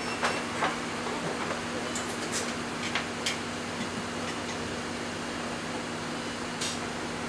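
Steady fan hum and hiss, broken by a few light clicks of small tools handling the chip.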